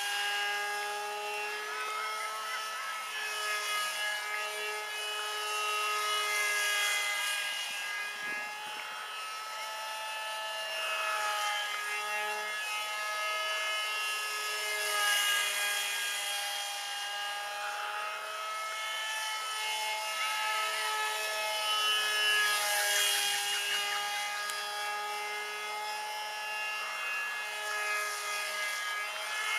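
Electric motor and propeller of a small RC foam jet in flight, a steady whine that shifts up and down in pitch every few seconds, with several swells of airy hiss.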